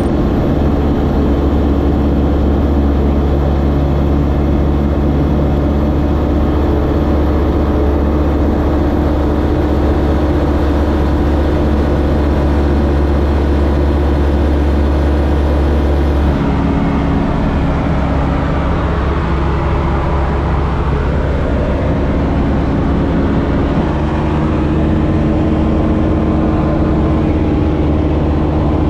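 Light single-engine propeller aircraft's piston engine running at takeoff power, heard from the cockpit as a steady drone. About 16 seconds in it changes to a different steady note with more rushing noise, and the note shifts again near 24 seconds.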